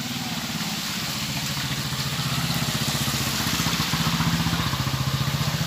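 Motorcycle engine running steadily at low revs close by, growing louder and loudest about four seconds in.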